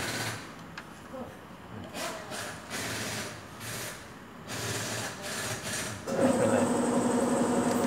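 Short spells of rustling and handling noise, then about six seconds in a steady machine hum starts, louder, with a low drone and a faint high whine.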